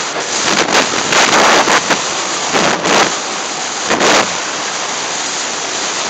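Wooden roller coaster train running at speed through an underground tunnel: a loud rush of wind over the microphone with the train's rumble, gusting harder several times.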